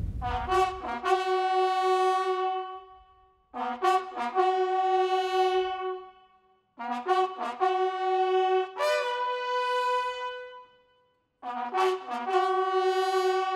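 Solo bugle sounding a slow ceremonial call during a military salute: four phrases on a few held notes, each about three seconds long with short silences between them.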